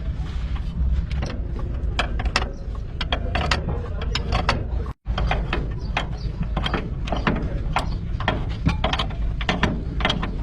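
Quick, irregular metallic clicking, ratchet-like, from hand tools working on a shock absorber, over a steady low rumble. The sound cuts out completely for a moment about five seconds in.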